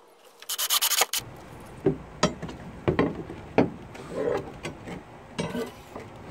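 A cordless drill runs briefly in the first second. Then a steel pry bar levers up an old wooden deck board, giving a series of irregular sharp knocks of metal against wood.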